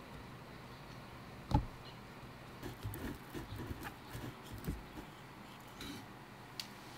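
Hands and long tweezers working a plant into moss and cork bark inside a glass terrarium: one louder knock about a second and a half in, then a run of small taps, clicks and rustles.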